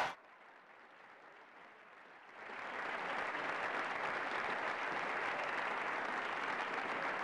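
A large crowd applauding and cheering, coming in about two seconds in after a near-silent start and then holding steady.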